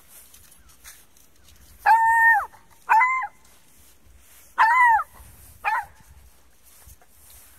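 A dog yelping four times in close succession: short, high-pitched cries that hold their pitch and then drop away, the first the longest.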